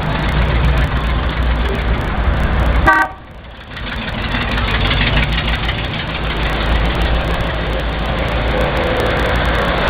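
Cars driving slowly past with engines running and a steady low rumble. A car horn toots briefly about three seconds in, then the sound cuts out suddenly and comes back up.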